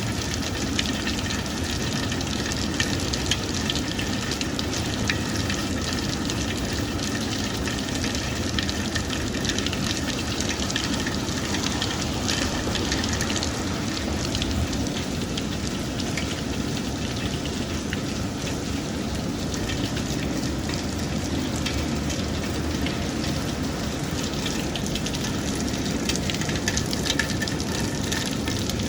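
Steady rain falling, with a dense, even patter of many small drops.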